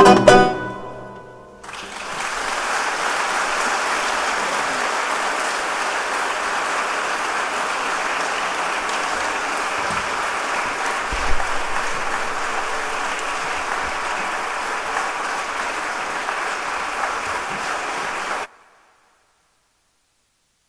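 The ensemble's final chord, with accordion, ends right at the start and dies away. A large audience then applauds steadily for about sixteen seconds, and the sound cuts off suddenly near the end.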